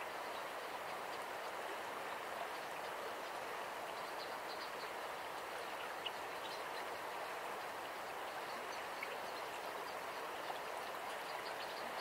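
River water rushing steadily over a stony bed, an even hiss with faint ticks and splashes scattered through it.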